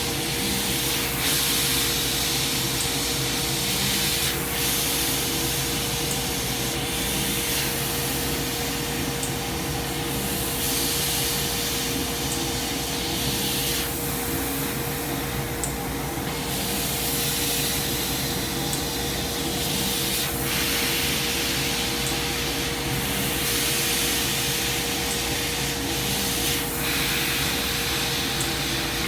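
Coherent Meta 1000-watt CNC laser cutting machine running: a steady mechanical hum with a constant whine under it, and a high hiss that rises and falls back every few seconds.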